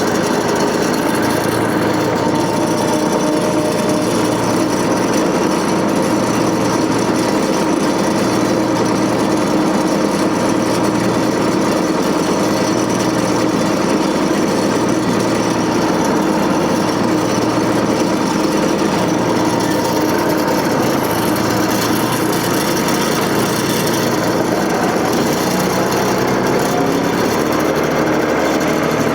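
Tractor engine running steadily at a constant speed, powering a John Deere 485A backhoe.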